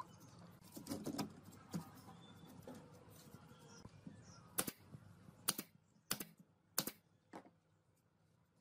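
Nail gun firing five times into thin bent wooden slats, sharp snaps about every 0.6 to 0.9 s from about halfway in. Before that come softer knocks of the wooden strip being handled.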